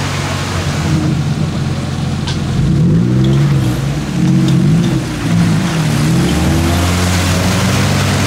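Off-road 4x4 SUV engines working through deep mud, a steady low engine note that is revved up and down several times in the middle.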